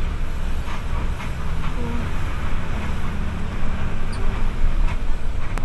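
Bus engine running with a low, steady rumble. A single sharp click comes near the end.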